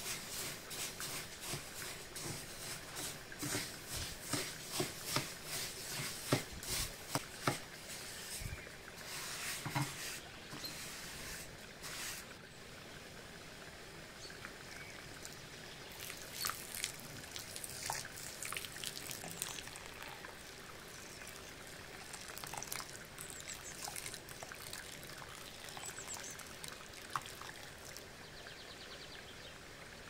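Pouring and trickling in the kitchen. A dense run of small sharp clicks and crackles fills roughly the first dozen seconds, then thins to fainter, sparser ticks.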